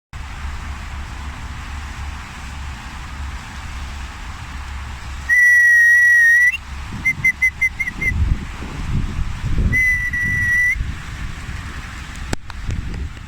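A dog whistle blown in a pattern: one long steady note of about a second, then five quick short pips, then another long note, over a steady background hiss and low rumble.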